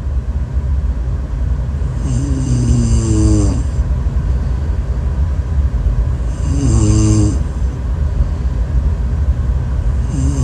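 A person snoring: three pitched snores about four seconds apart, each a second or so long, over a steady low rumble.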